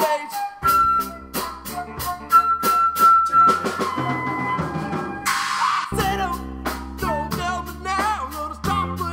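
Indie rock song playing, with a drum kit beating out a steady rhythm, bass and sustained notes; about five seconds in, a cymbal swell or wash of noise cuts off before the band comes back in.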